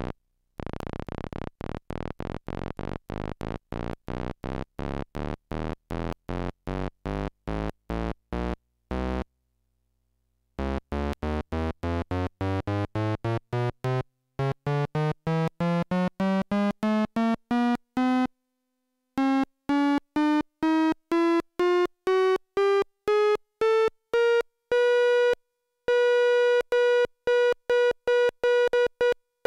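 Homebuilt analog synthesizer's oscillator playing short separate notes, about three a second, stepping up in pitch over several octaves in three runs with brief pauses between. Near the end the pitch stops rising and the notes repeat on the same tone: the oscillator has reached its limit, where any control voltage over 5 V gives the same tone.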